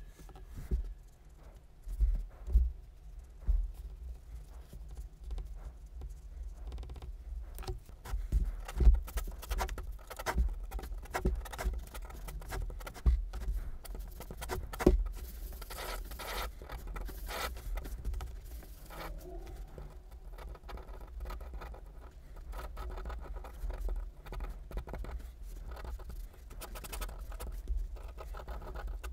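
Pen scratching on paper in quick strokes as lines and ellipses are drawn, with the pen tip tapping and soft knocks of the hand on the desk.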